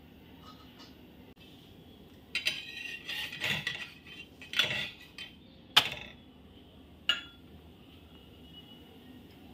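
Metal spatula scraping and clinking against a tava as a puffed puran poli is lifted and flipped: a run of scraping in the middle, then a sharp clink and a lighter one about a second later.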